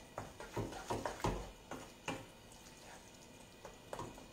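Wooden spoon stirring thick, creamy cooked millet in a pan: irregular soft clicks and scrapes, most of them in the first two seconds, then sparser.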